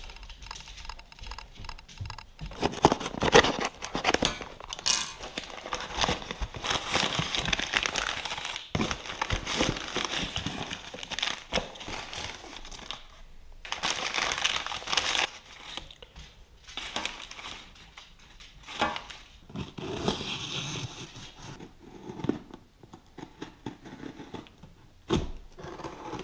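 Plastic packaging bags being crinkled and torn open by hand as parts are unwrapped, in uneven bursts of rustling.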